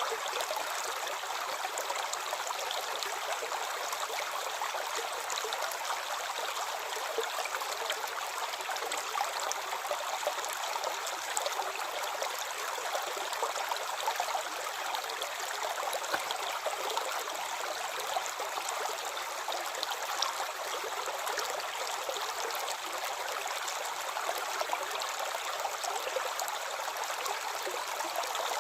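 A calm river or stream flowing, a steady rush of water with fine trickling and gurgling detail.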